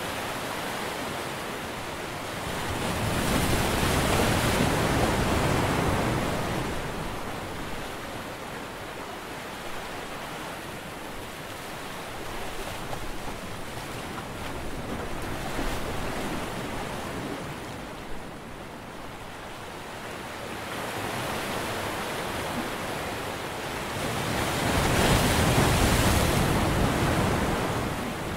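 Sea surf breaking and washing ashore as a rushing wash of noise, surging loudest twice, a few seconds in and again near the end, with smaller swells between.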